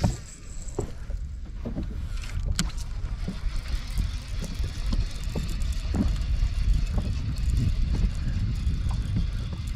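Wind rumbling on the microphone, with water lapping and slapping against the hull of a bass boat in small irregular ticks.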